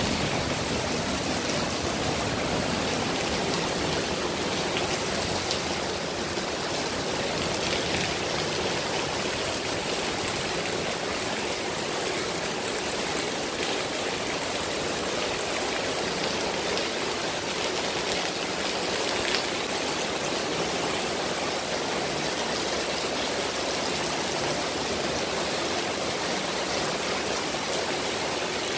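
Heavy rain falling on paving and plants, a steady, even hiss of water.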